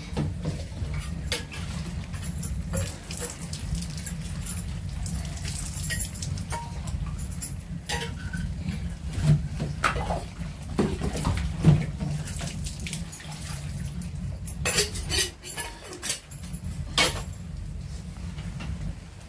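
Small glass tea cups clinking against each other and a metal pan as they are rinsed, with water poured from a plastic jerrycan into a metal kettle. Sharp clinks come irregularly throughout over a steady low rumble.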